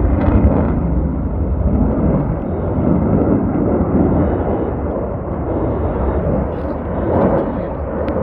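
Loud, steady low rumble of an F-35 fighter's single afterburning turbofan engine as the jet flies by.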